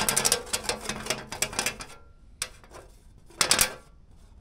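A slightly bent steel welding rod rolled across a flat sheet-metal panel, rattling with rapid clicks as it rolls. It is a test for straightness, of the kind used on engine pushrods. One long roll is followed by two short ones near the middle and near the end.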